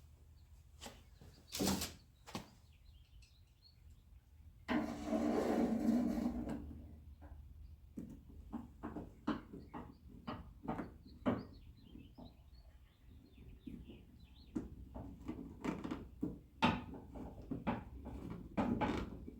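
Hand work on a 1957 Chevrolet Bel Air door while its outer door handle and gasket are fitted: scattered clicks and knocks of metal parts and tools. About five seconds in there is a louder, denser stretch of noise lasting about two seconds.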